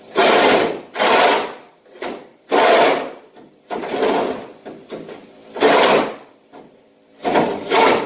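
Hand-tool work under the hood: a series of harsh rasping or scraping strokes, each about half a second long, coming irregularly with short pauses between.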